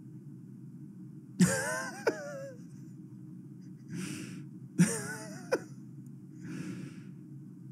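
A man laughing under his breath: two short voiced chuckles and a couple of breathy exhales, with a couple of sharp clicks, over a steady low hum.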